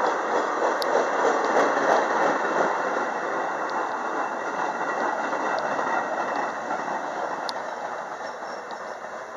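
Metra bilevel commuter cars rolling past close by, a steady noise of wheels on rails with a few faint sharp ticks. The noise gradually fades.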